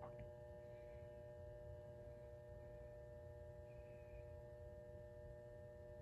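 Faint, steady hum from the ballast of a 100-watt mercury vapor lamp that is still warming up: several pure tones held together with a low rumble under them.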